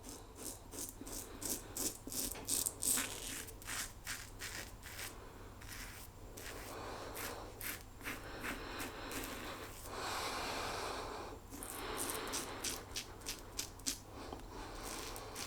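Quad-edge safety razor scraping through lathered stubble in a run of short, quick strokes, with a longer, steadier hiss about ten seconds in.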